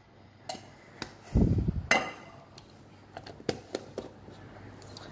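A stainless-steel snack box and utensils being handled on a wooden cutting board: a few sharp clinks and knocks, with one duller, louder thump about a second and a half in.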